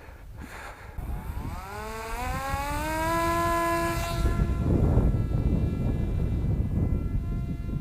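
Small RC plane's brushless motor and propeller whining, rising in pitch over a couple of seconds and then holding steady, with wind rumbling on the microphone.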